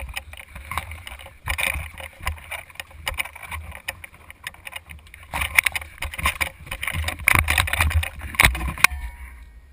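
Knocking and rumbling from an action camera mounted on an airsoft rifle as the player moves, with many sharp clicks and knocks that grow denser about halfway through.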